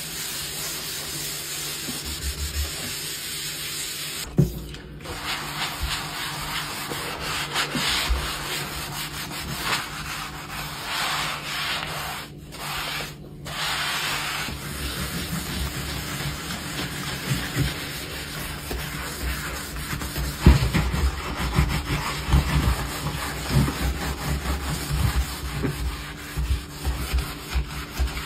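A sponge scrubbing a kitchen countertop and then a stainless steel sink with cleaning cream, a continuous rough rubbing with short pauses. Soft low knocks join it in the second half.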